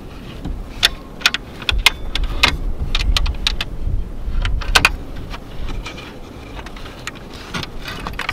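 Plywood bed-platform panels being shifted and lifted inside a small car: a quick string of sharp wooden knocks and clatters, thickest in the first half, over a low wind rumble on the microphone.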